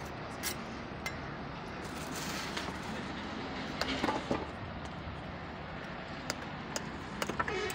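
Bricklaying trowels tapping and clinking on bricks and a metal mortar pan: scattered sharp clinks, a cluster about four seconds in and several more near the end, over a steady background hiss.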